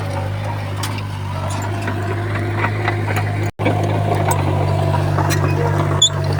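Komatsu D31P bulldozer's diesel engine running steadily with scattered metallic clanks and knocks. The sound drops out for a split second about halfway through.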